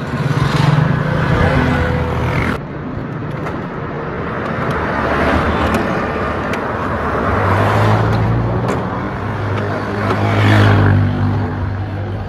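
Street traffic: several motor vehicles passing close by, their engine and tyre noise swelling and fading, with a low engine hum running under the last few seconds.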